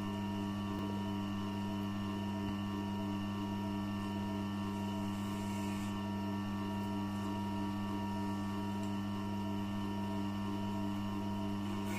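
Electric sharpening machine with a leather stropping wheel, its motor humming steadily with a faint regular pulse from the turning wheel.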